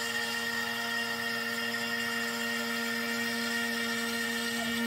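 CNC router spindle at 12,000 rpm with a steady whine, its end mill cutting a shallow pass through MDF at a 50 inch-per-minute feed.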